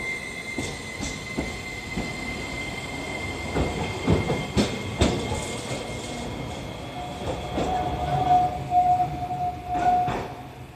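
Iyotetsu 5000-series low-floor tram pulling away and running off along the track, its wheels knocking over rail joints a few times around four to five seconds in. A steady high tone sounds for about three seconds near the end, and the sound fades as the tram moves away.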